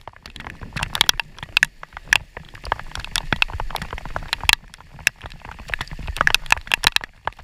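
Raindrops striking the microphone and rain gear in a thunderstorm, a dense run of irregular sharp crackles and taps over a low rumble.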